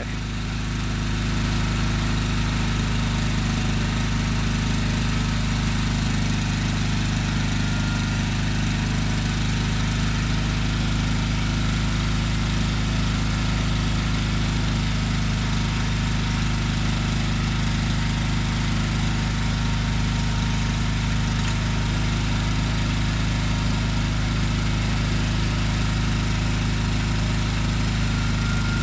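Engine of a Gravely 20-G garden tractor running steadily at an even speed, with no change in pitch or level.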